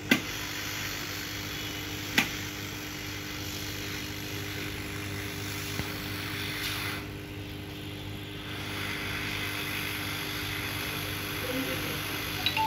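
Hot-air rework gun blowing a steady stream of air onto a projector's circuit board to desolder a chip, with a low steady hum beneath it. Two sharp metallic clicks sound near the start, and the hiss drops for a second or so in the middle.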